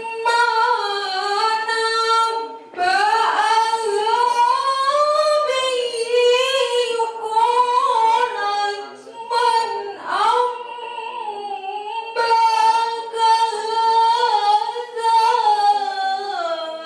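A woman reciting the Qur'an in melodic tilawah (qiro'ah) style into a microphone: one voice holding long, ornamented notes that waver and glide up and down, with short breaks for breath between phrases.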